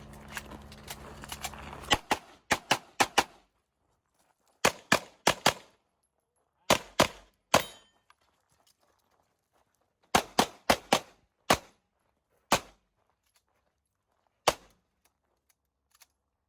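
Rapid pistol fire from a CZ Shadow 2: groups of three to six shots in quick succession, a short pause between groups, and single shots near the end. Each shot cracks sharply with a brief echo.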